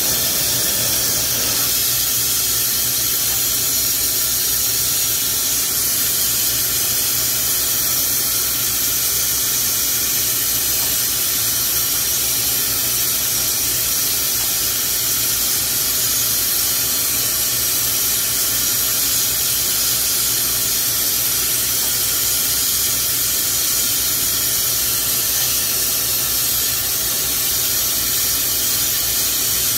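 Glassworking bench torch burning with a steady hiss while glass rod is held and turned in its flame.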